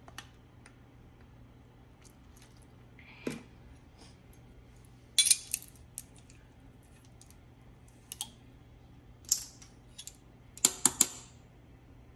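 Kitchen utensils and containers being handled: scattered light clicks and clinks. There is a small cluster about five seconds in and three sharp clicks in quick succession near the end, the loudest.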